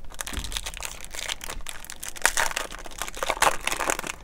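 Foil wrapper of a baseball card pack being torn open and crinkled in the hands: a continuous run of crackles and small rips, loudest about halfway through and again near the end.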